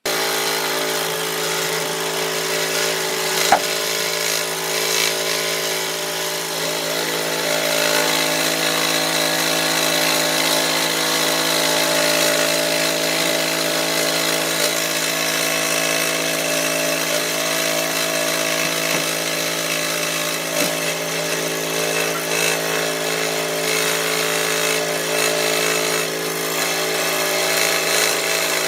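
Electric power tool running steadily with a motor hum while it works wood, with one sharp tick about three and a half seconds in.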